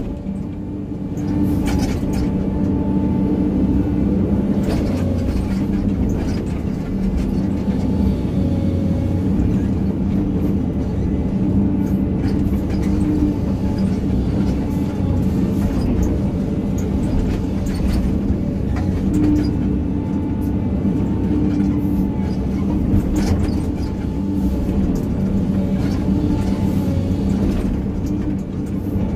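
Excavator's diesel engine running steadily under load, heard from the operator's cab, with scattered short knocks and clunks from the working machine.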